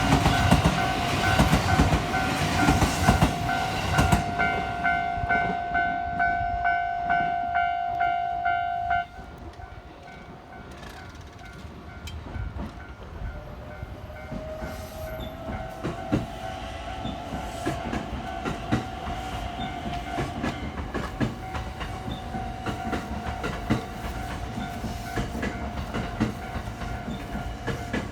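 Electric train passing over a Japanese level crossing, wheels clattering on the rails while the crossing's warning bell rings steadily. About nine seconds in everything drops sharply to a quieter train running on, with a whine that rises in pitch a few seconds later.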